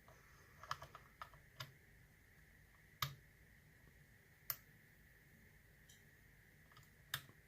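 Faint, scattered metallic clicks of a lock pick working the pin stack of a Yale 840 series padlock held in a false set. A quick cluster of small clicks comes in the first two seconds, then single sharper clicks about three, four and a half and seven seconds in.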